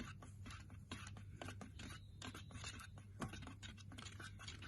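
Paint being stirred in a tin: faint, irregular scraping and light tapping of the stirrer against the can, over a low steady hum.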